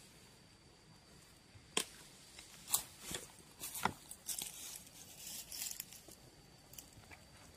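Dry leaves and undergrowth rustling and crackling as a person moves through dense vegetation: a series of sharp snaps and brushing sounds starting about two seconds in and dying away near the end, over a faint steady high-pitched tone.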